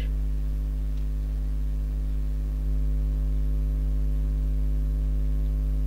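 Steady electrical mains hum with a buzzing row of overtones, with a faint click about a second in.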